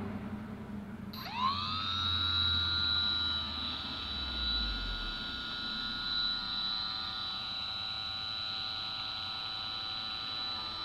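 Homemade brushless DC motor drill with a felt polishing bit spinning up about a second in, its whine gliding up in pitch and then holding as a steady high whine at speed.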